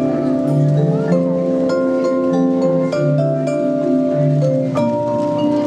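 Marimba and vibraphone duo playing a tune with mallets: low wooden marimba notes under ringing, sustained vibraphone notes.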